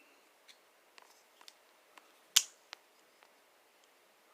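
Ozark Trail 8604 ball-bearing flipper knife being handled and flipped, with light clicks and one loud, sharp snap of the blade about two and a half seconds in.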